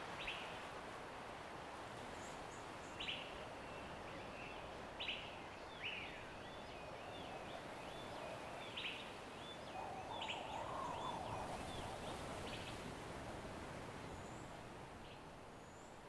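Wild birds calling: sharp repeated chirps and wavering warbled notes, with a lower chattering call around ten seconds in, over a steady background hiss.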